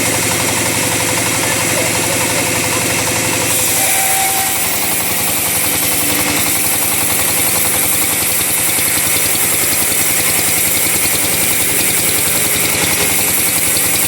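Chainsaw engine running steadily while sawing teak wood. Its sound changes about four seconds in, turning thinner and hissier.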